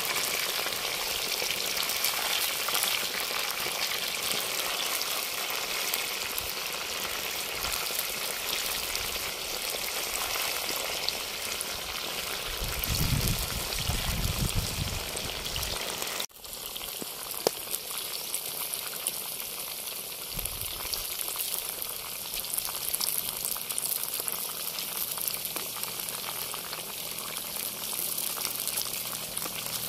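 Masala-coated fish pieces deep-frying in hot oil in an earthen pot: a steady, dense sizzle of bubbling oil. About halfway through it drops out for a moment, then goes on a little thinner.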